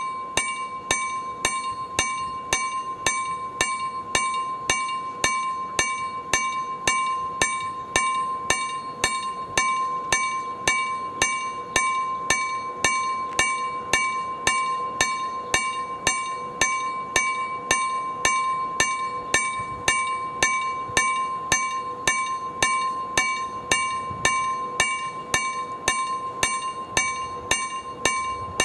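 Railway level-crossing warning bell ringing steadily, about two strikes a second, each a ringing metallic tone: the crossing signal warning of an approaching train.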